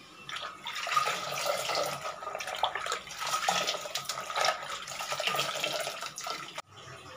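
A cloth being swished and wrung by hand in a bucket of water, with irregular splashing and sloshing; it stops abruptly near the end.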